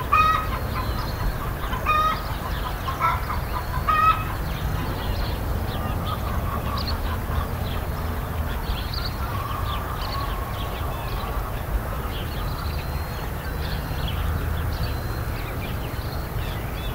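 Farmyard chickens clucking, with a few louder calls in the first four seconds, many short high chirps throughout, and a steady low rumble underneath.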